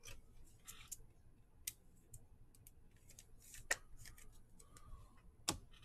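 Faint clicks and short rustles of a trading card in a clear plastic holder being handled, with two sharper clicks, one near the middle and one near the end.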